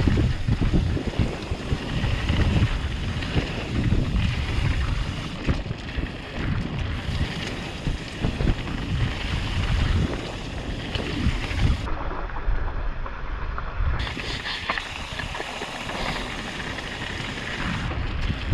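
Wind rushing over a mountain-bike-mounted action camera's microphone during a fast descent on a dirt trail, with tyre and trail rumble and the bike rattling over bumps. The sound turns duller for about two seconds near the two-thirds mark.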